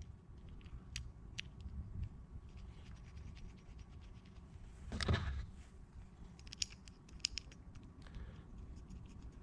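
Faint small-parts handling: light clicks, ticks and scrapes as screws are driven to fix a metal mounting bracket onto an oil separator, with a cluster of quick ticks near the end and one brief louder sound about halfway through.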